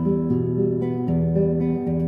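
Background music: acoustic guitar playing chords, with new chords struck about every half second to second.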